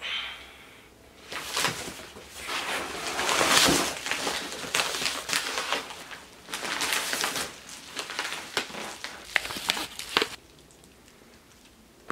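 Padded paper mailers rustling and crinkling as they are grabbed and handled, with sharp crackles and taps. The rustling comes in irregular bursts and stops about two seconds before the end.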